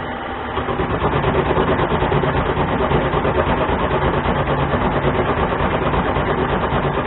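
Harbor Freight mini lathe running at about 500 RPM under power feed, its high-speed-steel tool taking a five-thousandths cut in a spinning steel workpiece. The motor, gears and cut make a steady running noise with a fast, regular pulsing rattle that grows louder about half a second in as the cut bites.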